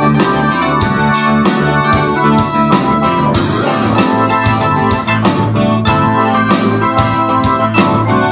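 Electronic keyboard played live: sustained organ-like chords over a low bass line, with a steady rhythm of short accented hits.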